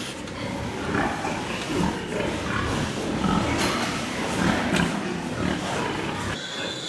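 Many farmed pigs calling at once, a steady overlapping din of grunts with a few sharper cries.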